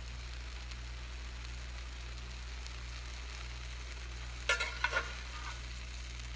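Pancakes sizzling faintly on an electric griddle over a steady low hum, with two sharp metallic clinks from the metal spatulas about four and a half seconds in.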